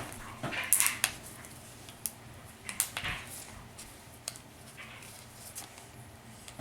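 Plastic foil wrapper of a Kinder Joy egg being crinkled and pulled at while being opened: scattered crackles and rustles, busiest about a second in and again around three seconds in.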